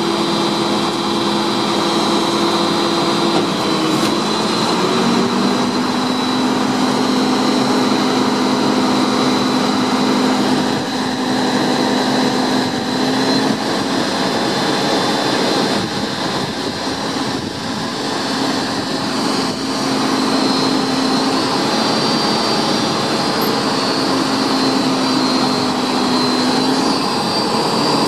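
Automated Lodal side-loader garbage truck's engine running while the truck stands at the curb, with a steady high whine over it. The engine's pitch steps down about five seconds in and briefly fades around the middle before coming back.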